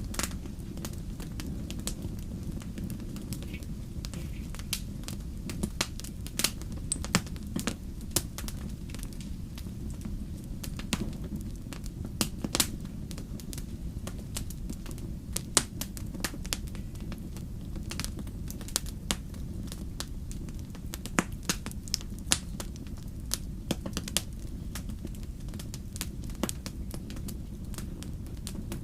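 Wood campfire burning, crackling with frequent irregular sharp pops and snaps over a steady low rumble.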